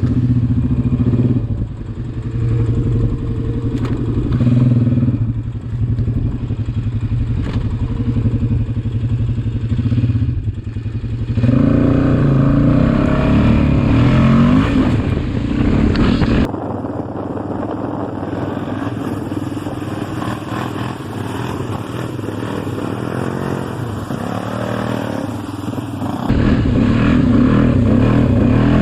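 Honda Rincon 680 ATV's single-cylinder engine with an HMF swamp exhaust running and revving up and down. The low rumble drops away for about ten seconds past the middle, then comes back.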